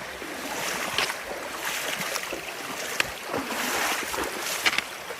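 Wading through a shallow creek: water sloshing and splashing around the legs with each step, over the steady rush of the stream, with a few sharper splashes.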